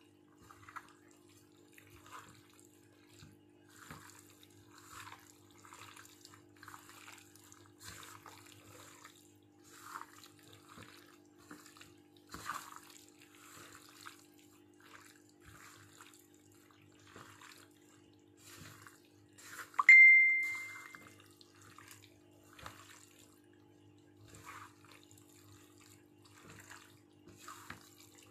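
Gloved hands squishing and squelching sliced chicken breast through a thick tocino marinade in a large aluminium pan, a wet squish about once a second. About two-thirds of the way through, a single loud, high ring cuts in and fades within about a second. A steady low hum runs underneath.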